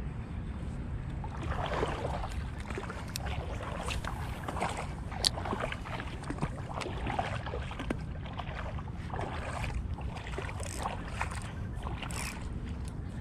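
Wind rumbling on the microphone while shallow water sloshes and laps at the edge, with small irregular splashes and clicks and one sharper click about five seconds in.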